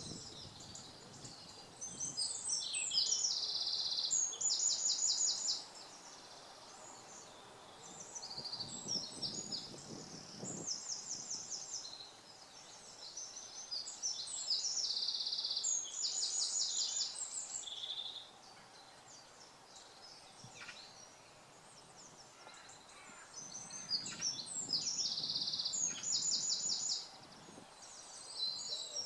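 A songbird singing the same kind of loud, high-pitched song again and again: four phrases of about three to four seconds, each a quick run of notes with fast rattling trills, with fainter chirps from other birds in the pauses.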